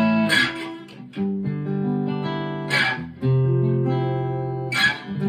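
Fender California Malibu acoustic-electric guitar, plugged in and played through a tube amp, strumming a series of chords, each left to ring.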